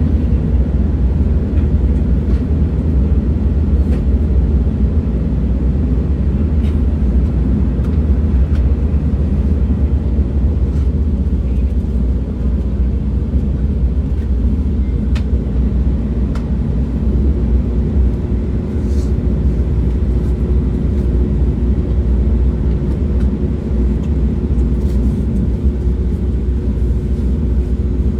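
Train running at a steady speed: a continuous low rumble with scattered faint clicks. A faint steady hum joins a little over halfway through.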